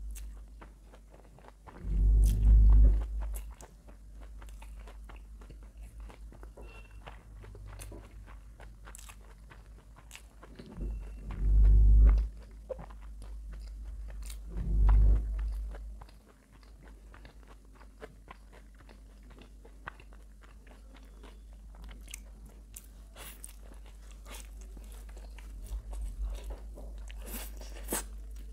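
Close-miked eating: steady chewing of a mouthful of chow mein noodles, then crisp, crackly bites and chewing on a spicy roasted chicken leg from about three quarters of the way through. Three loud, deep thumps stand out, about two seconds in and twice around the middle.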